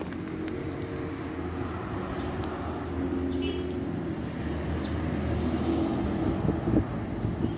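Steady low engine drone, a motor running nearby, with a short high chirp about halfway through.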